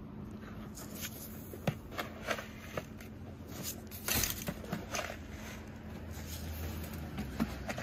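Footsteps crunching on packed snow and ice while salt is thrown by hand from a bucket, the granules hissing and pattering across the pavement, loudest about four seconds in.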